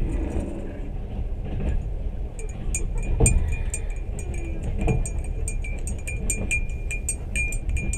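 Passenger train running: a steady low rumble from the moving carriage. From about two seconds in, rapid light metallic clinking and jingling goes on irregularly, with a heavier knock a little after three seconds.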